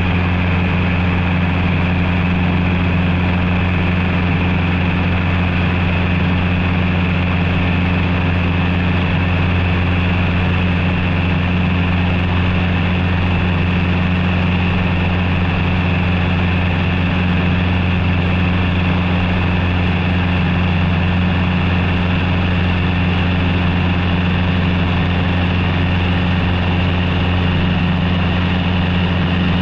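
Cessna 150's four-cylinder Continental O-200 engine and propeller running steadily in cruise flight, a constant drone that holds the same pitch and level throughout.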